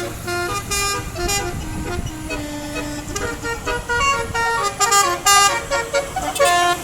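Bus telolet horn, the multi-tone musical horn of an Indonesian coach, playing a melody of short stepped notes. The notes come quicker and louder in the second half.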